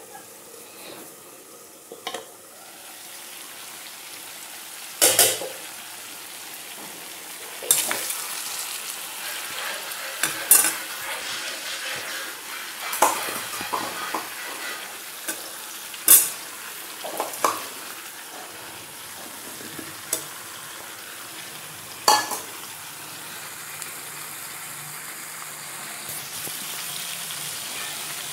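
Pork curry frying in a metal kadai with a steady sizzle while a steel spoon stirs it. The spoon knocks and scrapes sharply against the pan every couple of seconds through most of the stretch.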